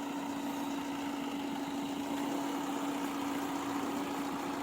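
Fiat Punto Evo's engine idling steadily, with an even, unchanging hum.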